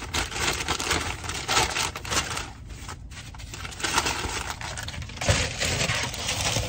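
Paper takeaway bag rustling and crinkling as hands rummage inside it, in quick irregular crackles.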